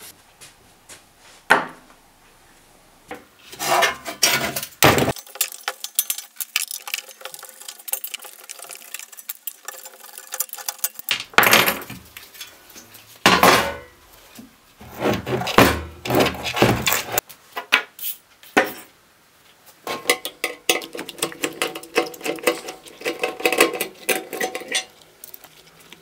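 Metal microwave-oven parts and hand tools clinking, knocking and rattling against a wooden workbench as the oven is taken apart. The noise comes in several bursts, with a quieter spell about a third of the way in.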